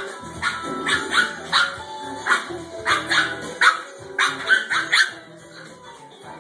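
Pug barking and yelping in quick, excited bursts, about two or three a second, while being wrestled and rubbed by hand in play; the calls stop about five seconds in. Music plays underneath.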